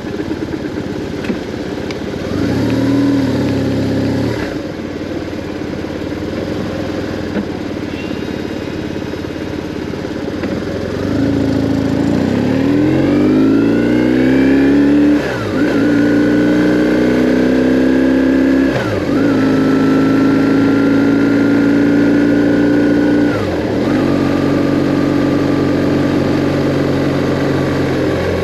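BMW R1150R's boxer-twin engine idling, revved briefly once about three seconds in, then pulling away and accelerating, its pitch climbing and dropping sharply at three upshifts.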